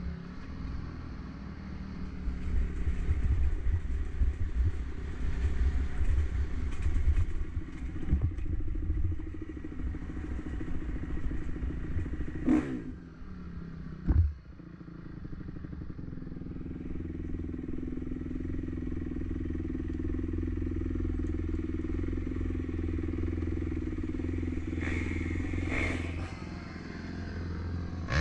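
Dirt bike engine running at low speed over a rough trail, with rattling from the bike, then two sharp knocks about halfway through, after which the engine settles into a steady idle. Near the end a second dirt bike revs briefly.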